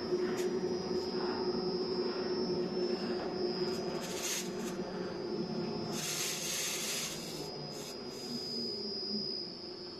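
Wide belt sander running with its feed conveyor moving: a steady mechanical drone with a high whine and a hum that fades after about four seconds. A brief hiss comes about four seconds in, and a longer one around six seconds.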